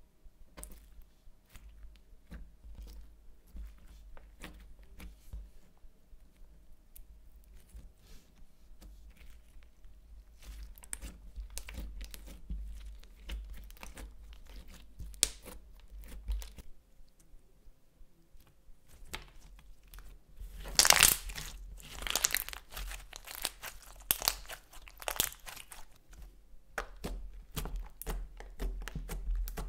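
Hands kneading and stretching clear slime mixed with crushed eyeshadow, blush and lipstick, making sticky crackling and popping sounds. A louder, denser run of crackles comes about two-thirds of the way through.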